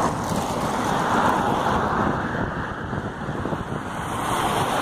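Wind buffeting the microphone, a steady rushing noise, with road traffic noise underneath.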